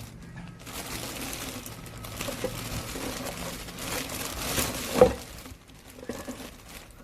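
Rustling and crinkling handling noise, with a sharp knock about five seconds in.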